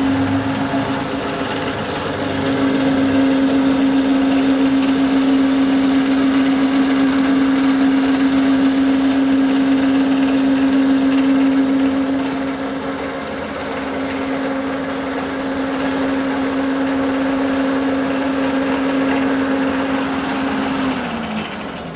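A small motor running with a steady, high hum. Just before the end its pitch falls as it slows down.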